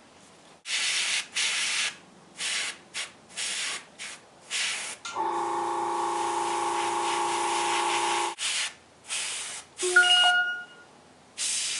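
Airbrush spraying paint in short on-off bursts of hiss, about a dozen in all. In the middle comes a steadier spray lasting about three seconds with a humming tone under it, and near the end a brief high tone.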